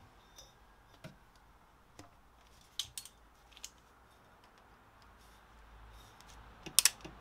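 Scattered small metallic clicks as a power steering hose and its spring clip are handled with pliers, with a louder cluster of clicks near the end.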